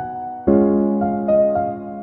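Background music: soft electric-piano chords with a slow melody, each chord struck and left to fade.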